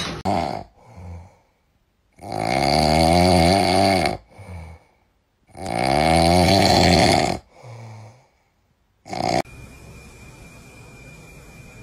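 A sleeping pet snoring loudly: two long snores of about two seconds each, a couple of seconds apart, with shorter, softer breaths between them. Near the end the sound changes to a steady hiss with a thin high tone.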